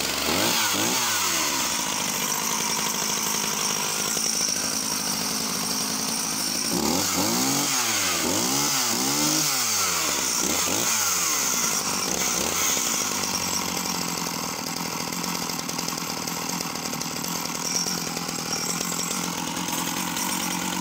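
Sachs Dolmar 111 52cc two-stroke chainsaw running from a stone-cold start. It is revved up and down about a second in, runs steadily for a few seconds, then is blipped up and down repeatedly for several seconds in the middle before settling back to a steady run.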